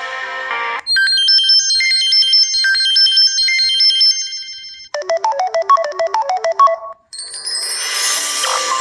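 Samsung Galaxy S4 preloaded ringtones played one after another, each cut off after a few seconds. One tune ends under a second in. Then a high, bright chiming melody plays and fades, then a quick run of mallet-like notes, and another ringtone starts about seven seconds in.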